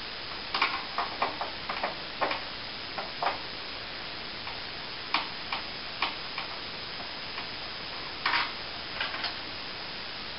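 Irregular clicks and light metallic ticks of a screwdriver undoing the screws on a PC case's metal expansion-slot cover plates, with a short scrape about eight seconds in.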